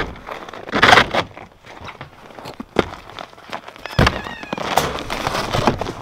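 Crunching footsteps on crusty, packed snow, with a loud rustle about a second in and scattered sharp knocks and clicks.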